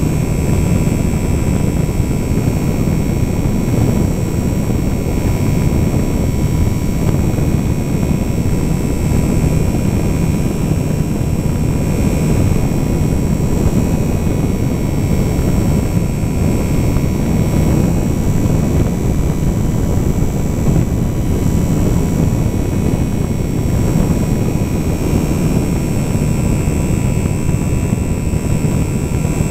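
Electric motor and propeller of a HobbyZone Super Cub LP radio-controlled plane running steadily in flight, heard from a camera riding on the wing, with a steady high whine over heavy rushing air on the microphone.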